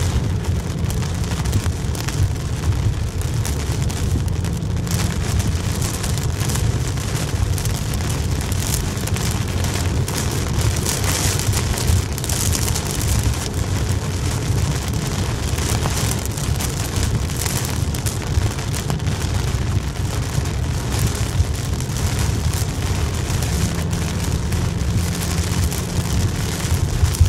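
Heavy rain drumming on a moving car's windshield and roof, heard inside the cabin over a steady low rumble of road and engine noise.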